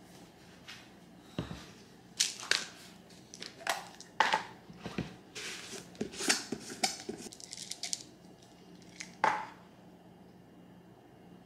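A run of light knocks, clicks and short rustles as household objects are handled, with a few sharper knocks about two, four and nine seconds in, over quiet room tone.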